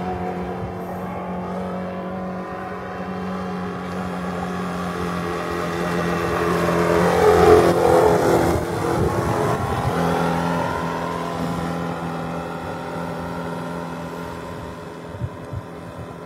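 Four-stroke engine of a radio-controlled model boat running steadily at speed. It grows louder as the boat passes close about halfway through, the pitch bending as it goes by, then fades as the boat heads away.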